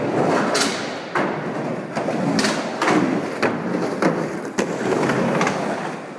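Skateboard wheels rolling over plywood ramps, with a string of sharp clacks and thuds as boards hit and land on the wood, about seven of them.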